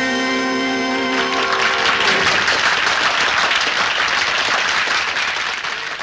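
The song's last held note, voice and band, ends about a second in. Audience applause follows and fades away near the end.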